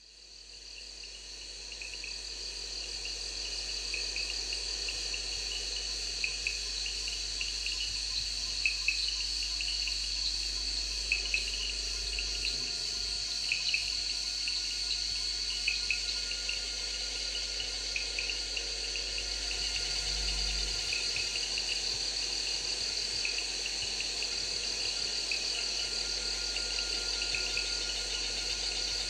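Night chorus of crickets: a steady high trilling that fades in over the first couple of seconds, with scattered short chirps from other insects throughout.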